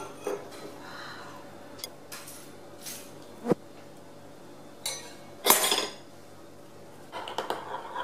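Metal tongs and a metal spoon knocking and clinking against a stainless steel stockpot and a ceramic bowl: scattered single knocks, one ringing briefly, a louder clatter a little past halfway, and quick small clinks near the end.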